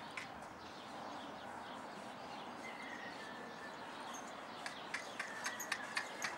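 Quiet outdoor background with a faint bird chirp about halfway through; in the last two seconds a quick run of sharp hoofbeats, about four a second, as a young Andalusian stallion trots toward the camera across the arena ground.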